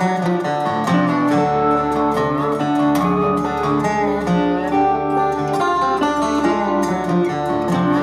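Background music led by plucked acoustic guitar, with a steady low bass underneath.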